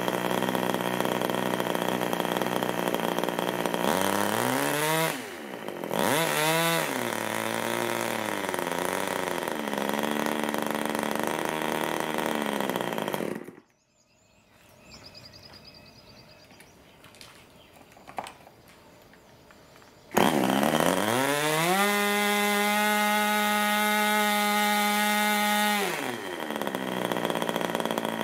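Merco 61 Mk IV two-stroke glow engine, a 1970s English crossflow with a ringed piston, running on a test stand and swinging an 11x6 propeller. Its note dips and recovers about five seconds in. About halfway through the sound cuts off abruptly for several quieter seconds. Then the engine is heard again at full noise, its pitch climbing and then holding steady before it drops lower near the end.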